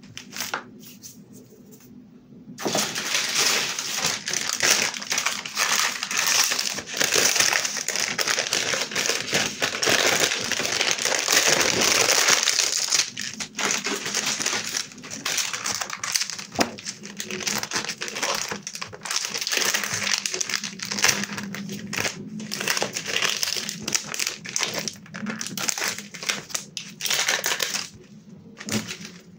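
Crumpled gold metallic foil crinkling and crackling as hands handle it. It starts about three seconds in as a dense, continuous crackle, then comes in shorter, broken spells through the second half.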